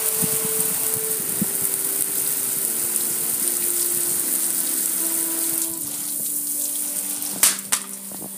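Steady hissing spray of water drumming on a gas grill's metal lid and body, easing off about six seconds in, with two sharp knocks near the end.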